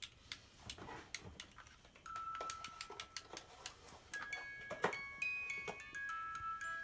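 Soft background music: light, even ticking percussion, then clear held chime-like notes joining about two seconds in.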